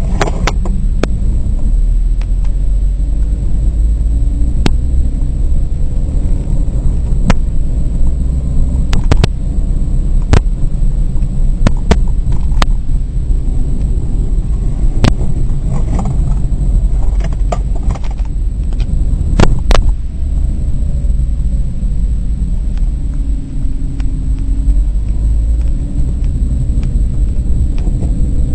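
Car driving, heard from inside the cabin: a steady low engine and road rumble with scattered sharp knocks and clicks, and the engine note rising briefly toward the end.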